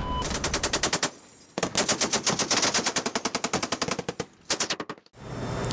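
Deck-mounted heavy machine gun firing in three rapid bursts of evenly spaced shots: one of about a second, a longer one of about two and a half seconds, and a short last one.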